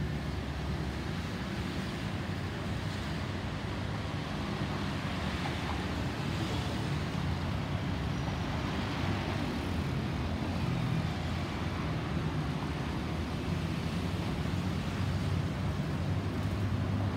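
Distant Airbus A320 jet airliner's CFM56 engines in flight: a steady low rumble with a hiss above it, slowly growing louder as it passes.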